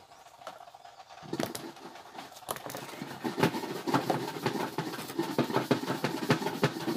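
Irregular clicks, taps and rustling from handling, as a fig is taken from a pot of water and a long knife is picked up to peel it, starting about a second in.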